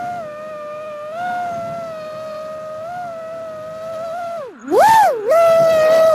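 FPV racing quadcopter's brushless motors whining at a steady pitch with small throttle wobbles. About four and a half seconds in the pitch falls away almost to nothing as the throttle is cut, then surges back up in two quick, louder throttle punches.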